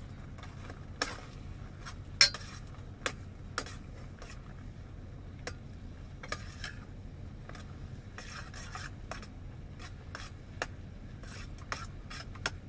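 A metal fork stirring linguini in a stainless steel pot, tossing it with butter: rubbing scrapes with scattered sharp clinks against the pot, the loudest about two seconds in. A steady low hum runs underneath.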